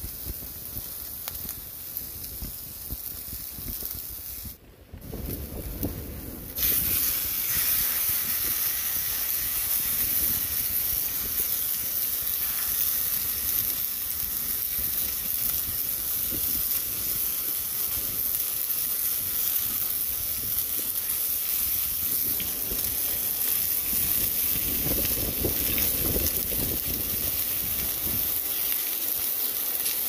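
Onion pieces sizzling gently in a frying pan over a campfire. About six seconds in, a seasoned steak goes into the pan and a much louder, steady sizzle takes over.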